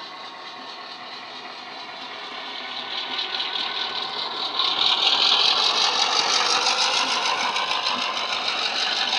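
Sound-decoder diesel engine of a model Irish class 121 locomotive (Wheeltappers sound on a LokSound 5 decoder) playing through the model's small double iPhone speaker. It runs steadily and grows louder from about three seconds in as the locomotive approaches, loudest from about five seconds on.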